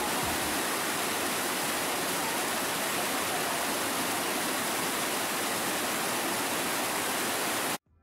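Waterfall pouring over rock ledges: a steady rush of falling, churning water that cuts off suddenly near the end.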